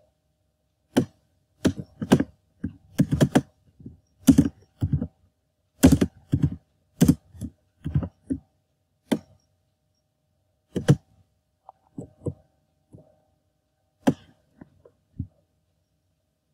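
Computer keyboard being typed on: separate knocking keystrokes in uneven runs with pauses, the last about fifteen seconds in.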